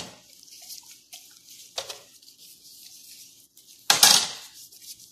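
Plastic food-prep gloves rustling as hands rub marinade into a raw whole chicken, with a few knocks; the loudest, about four seconds in, is a metal spoon clattering as it is picked up.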